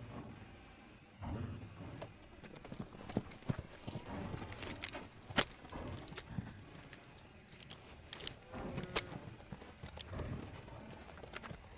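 Horse hooves clip-clopping unevenly on dirt, with scattered sharp clicks.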